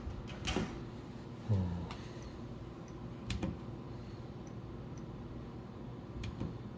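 A steady low hum with a few scattered clicks and knocks, the strongest a soft thump about a second and a half in.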